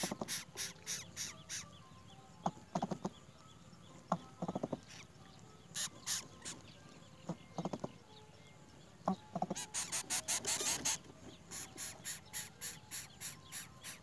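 Greater coucal parent and nestlings calling at the nest: runs of quick, raspy high notes repeated several times a second, the densest about ten seconds in, broken by four short low grunts.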